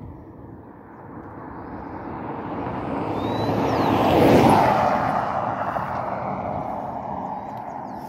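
A vehicle passing along the road: its noise swells to a peak about four seconds in, then fades away.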